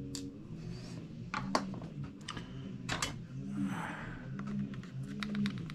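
Light, irregular clicks and taps of small hand tools and tiny parts being handled on an opened MacBook Pro during repair, with a short rustle about four seconds in.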